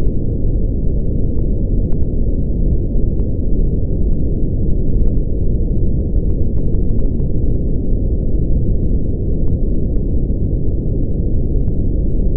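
Brown noise: a steady, deep rumble of even noise with its weight in the bass and no hiss in the highs, unchanging throughout.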